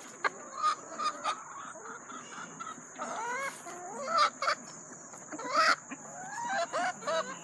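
Free-ranging chickens clucking: a string of short, scattered calls that bend up and down, the loudest about four and a half and nearly six seconds in.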